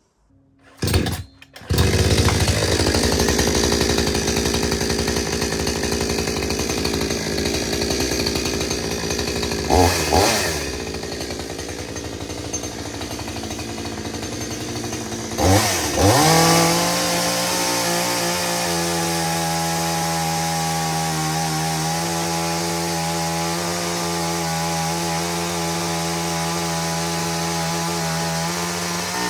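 Parkside petrol chainsaw's two-stroke engine running loudly, with two short revs about ten and sixteen seconds in, then holding a steady, even pitch.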